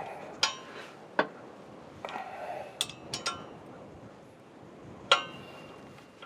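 Metal objects clinking and knocking against each other: about six sharp strikes, a few of them ringing briefly, the loudest about five seconds in.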